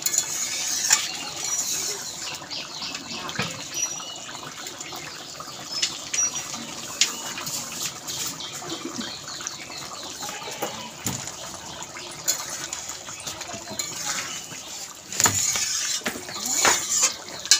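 Steel spatula clinking and scraping against a steel kadai as rohu fish curry simmers and bubbles. Short metallic knocks come scattered throughout, busiest near the end.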